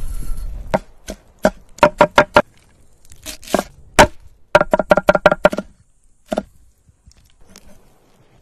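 A large cleaver-style knife chopping vegetables on a thick wooden cutting board. Separate chops come first, then a quick run of about eight strikes in a second. Many knocks carry a short ring.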